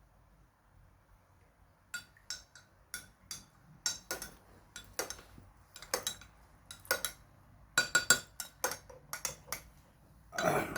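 A spoon clinking against a glass or cup, in a string of irregular sharp clinks with a light ringing tone, as honey is added and stirred into a herbal drink of lime juice and Himalayan salt. A louder, longer noise comes at the very end.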